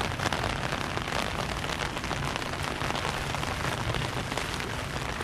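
Steady light rain, a dense patter of small drop hits on an umbrella held overhead and on the wet, flooded street.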